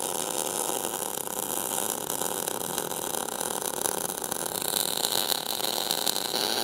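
MIG welder arc running one continuous bead along the seam of a clamped steel billet stack, a steady sizzling crackle with no break, from a machine set around 21 volts with .035 wire.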